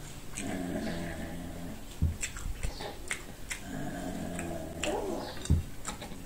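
Two drawn-out pitched vocal sounds, each lasting about a second and a half, with a few sharp clicks and knocks between and after them.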